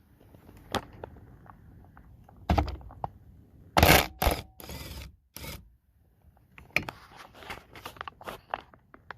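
A socket wrench is used on the door-panel bolt: a cluster of loud knocks and scrapes in the middle, then a run of quick, uneven clicks near the end.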